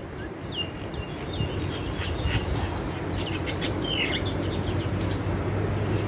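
Crested myna giving a string of short, hooked chirps, most of them in the first four seconds, over a steady low hum.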